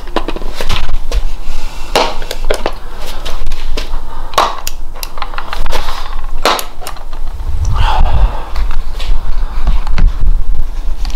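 Close, irregular clicks, knocks and rustling as handheld ghost-hunting meters are handled and switched off, over a low steady hum.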